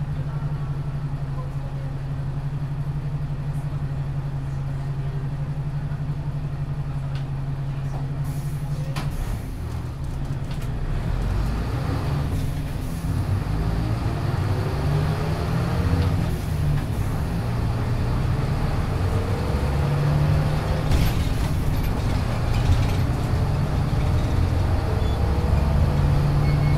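1996 Hino Blue Ribbon city bus heard from inside: its diesel engine idles steadily at first. About nine seconds in, after a few knocks, the bus pulls away. The engine note rises again and again as it accelerates through the gears.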